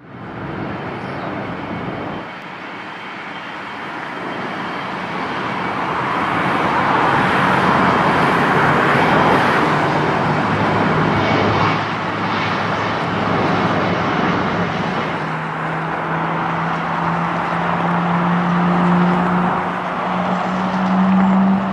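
Boeing 777-300ER's GE90-115B turbofan engines running at taxi power: a steady jet rush with a low hum that climbs slowly in pitch over the last several seconds.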